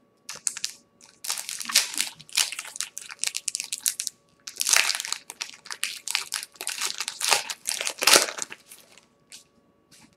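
Plastic baseball card pack wrapper being torn open and crumpled by hand, crinkling in several bursts.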